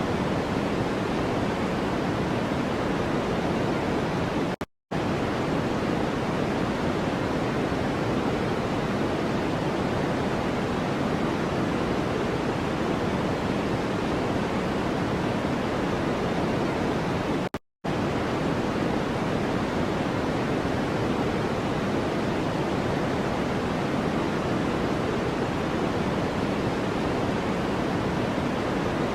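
Steady white-noise track, an even hiss weighted toward the lower pitches, that cuts out for a split second twice, about five seconds in and again near eighteen seconds.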